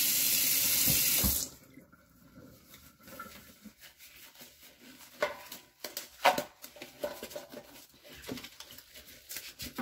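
Kitchen tap running into a stainless-steel sink, shut off about a second and a half in. After that, gloved hands rub and turn a whole raw chicken in the empty sink, making quiet wet squelches with a couple of sharper knocks.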